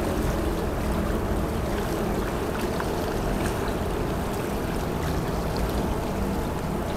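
Sumida River water lapping and washing against the bank: a steady rushing noise over a low rumble, with many small splashes.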